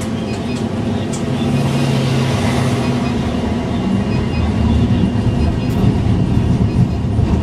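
Tram moving off slowly along street track, heard from inside near the driver's cab: a steady low motor hum with rolling wheel noise, getting gradually louder as it picks up speed.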